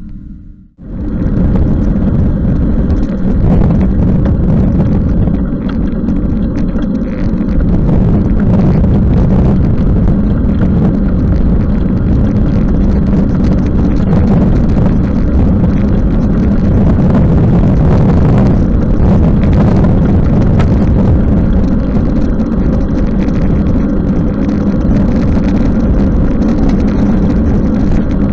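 Wind buffeting the microphone of a moving bicycle, with tyre and road noise on a wet road; a loud, steady rumble that starts about a second in.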